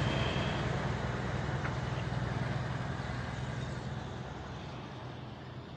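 A motor vehicle's engine and road noise going past, fading steadily as it moves away.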